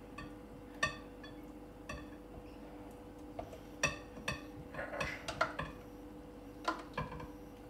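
A kitchen utensil knocking, clinking and scraping against a metal cooking pot as sticky risotto is scooped out into a bowl. It makes about ten sharp ringing knocks at irregular intervals over a steady faint hum.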